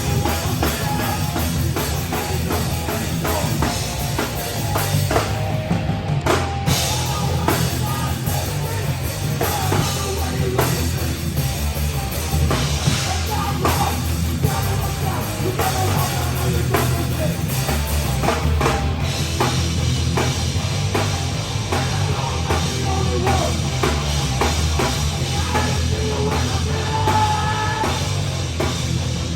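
Live heavy rock band playing without vocals, with drum kit and a heavy low end driving it.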